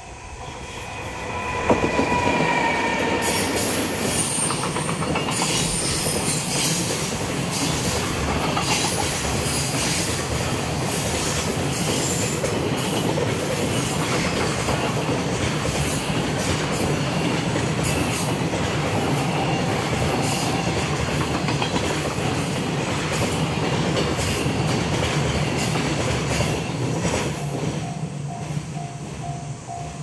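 Container freight train hauled by an electric locomotive passing at speed over a level crossing: a short horn blast about two seconds in, then a long steady rumble and clatter of wagon wheels over the rail joints. The wagons clear near the end and the level-crossing bell is heard ringing again.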